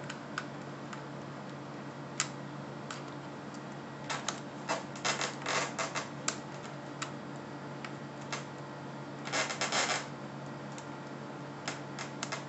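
Small clicks and scrapes of an Allen key turning a long screw down through a model airplane's foam elevator into its brass fitting, coming in scattered bursts, busiest around the middle and again near the end, over a steady low hum.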